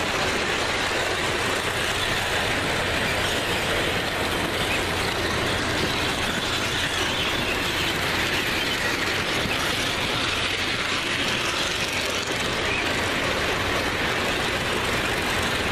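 O scale model trains running on the layout's track, a steady noise of motors and wheels on rail without a clear rhythm.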